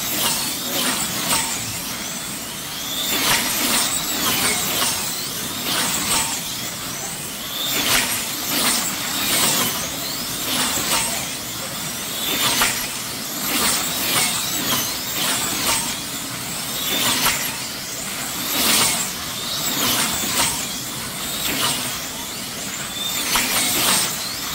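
Electric slot cars racing on a large multi-lane banked track. Their motors whine, rising and falling as the cars sweep past again and again, about once a second.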